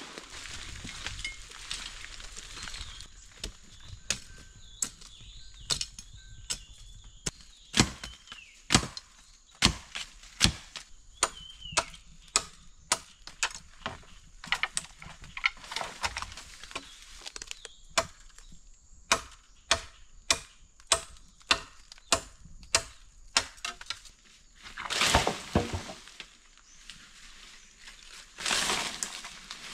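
Wood being chopped by hand with a blade: a long run of sharp strikes, about one or two a second and irregular in strength. Near the end come two longer swishing noises.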